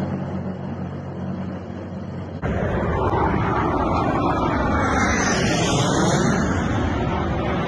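A tank's engine drones steadily as it drives past. About two seconds in the sound cuts to low-flying military jets passing overhead: loud jet noise with a whine that sweeps down in pitch as they go by.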